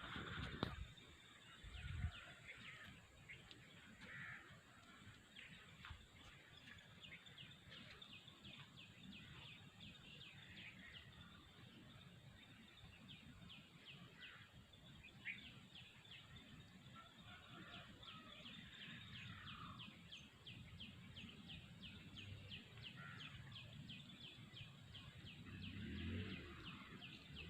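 Faint outdoor rural ambience with bird calls and a rapid, evenly repeated chirping that sets in after a few seconds. Two low thumps come near the start.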